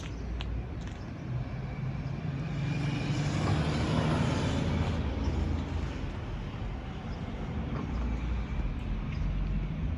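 Jet airliner passing on approach to land, its rumble swelling to a peak about four seconds in and then fading.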